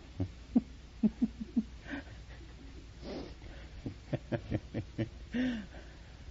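A person's voice in a run of short, quick sounds with breathy puffs between them.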